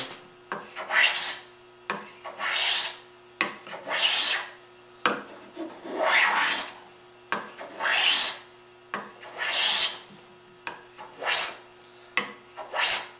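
Shoulder plane cutting curly maple in short repeated strokes, about eight rasping passes each lasting under a second, with a sharp click between strokes as the plane is set back down. The plane is cutting cleanly, with less tear-out than expected in the figured grain.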